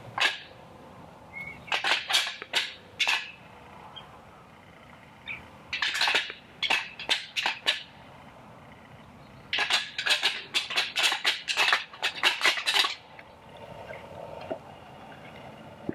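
Deer antlers rattled together in three bouts of rapid clacking and clicking: rattling that imitates two bucks fighting, to draw in a rutting buck.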